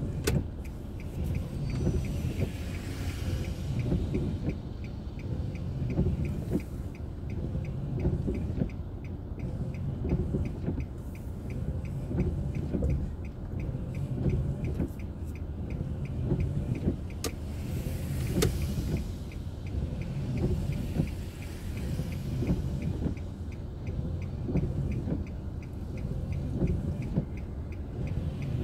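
Car being driven, recorded from inside by a dashboard camera: a steady low rumble of engine and tyre noise, with a faint, regular ticking above it.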